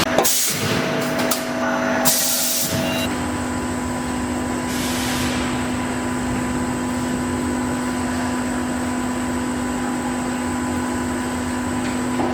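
Automatic wire mesh welding machine running: a steady machine hum, broken in the first few seconds by several short hisses like compressed air being let off.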